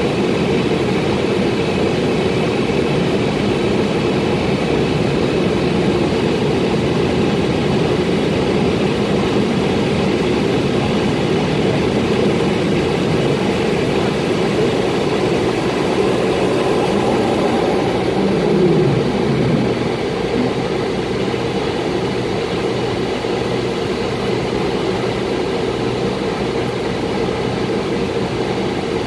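Steady noise of an airliner's jet engines and rushing air, heard inside the cabin during the climb after takeoff. It gets a little quieter about twenty seconds in.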